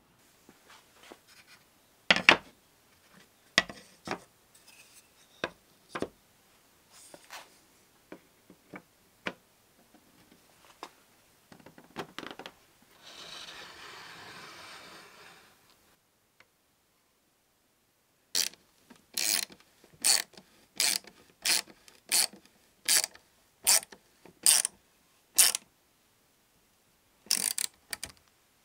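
Strips of wood knocked and set down on a workbench, and a few seconds of rubbing. Then a ratcheting hand screwdriver drives screws into a wooden wine-glass rack, clicking in regular strokes about one and a half a second.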